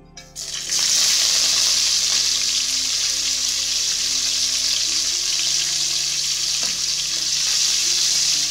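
Chopped green chillies and curry leaves hitting hot coconut oil with mustard seeds and urad dal, breaking into a loud, steady sizzle about half a second in; a wooden spatula stirs the tempering near the end.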